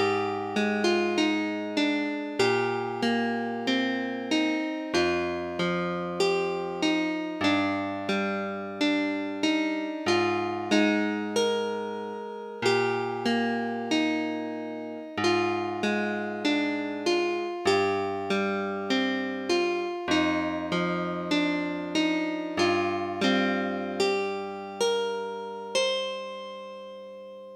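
Suzuki TES 370 keyboard playing an electric-piano-like sound: chords and a melody over a low bass line, each note struck sharply and then decaying. It ends on a held chord that fades out near the end.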